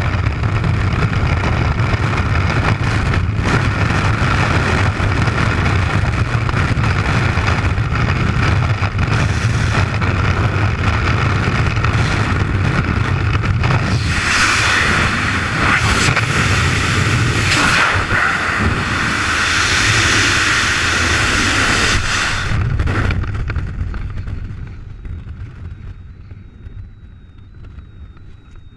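Loud, steady rush of freefall wind buffeting the microphone during a freefly skydive, with a heavy low rumble. About three-quarters of the way through it falls away over a couple of seconds to much quieter wind, as the parachute opens and the fall slows under canopy.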